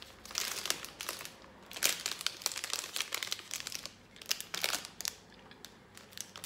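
The foil wrapper of a Prozis Zero Snack protein bar crinkling as it is folded and crumpled in the hands, in irregular bursts of crackle.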